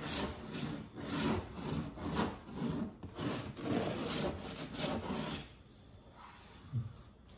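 Fingernails scratching back and forth across painted, water-damaged drywall, about two strokes a second, stopping about five and a half seconds in. This is the fingernail test, listening for hollow-sounding spots where water damage has lifted the paint and drywall paper.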